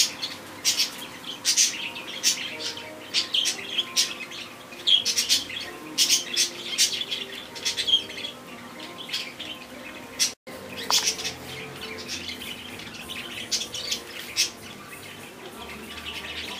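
Small birds chirping, short high calls repeated in quick clusters. The sound cuts out for a split second about ten seconds in.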